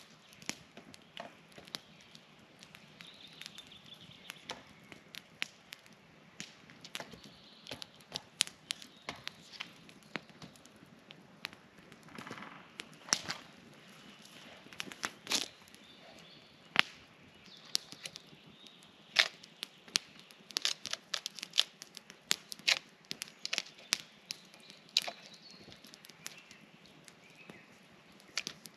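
Irregular sharp cracks and snaps, dozens of them scattered unevenly throughout, some loud. Faint high thin tones sound briefly now and then behind them.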